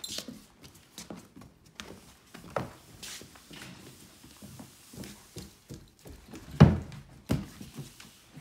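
Push broom on a hardwood floor with two puppies scrambling and biting at the broom head: irregular scuffs, paw patter and knocks, with two loud thumps close together late on.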